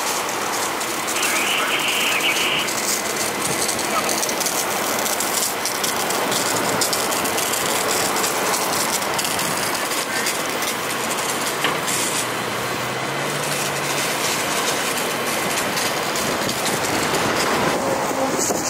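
Fire hoses spraying water onto wet pavement, a steady hiss, over the low hum of a running fire engine.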